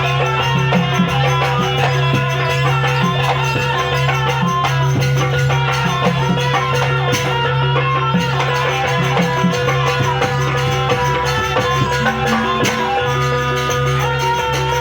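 Live Javanese jaranan accompaniment music: a percussion ensemble playing a fast, dense rhythm over steady ringing gong-like tones and pitched metallic notes.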